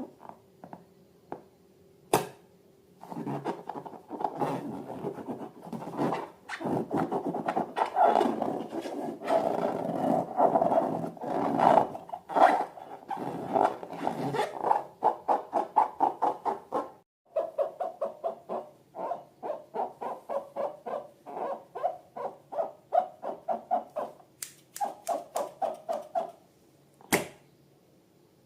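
Rubber balloons squeaking as they are rubbed and squeezed, in long stretches and then in quick repeated short squeaks, with a sharp snap about two seconds in and another near the end.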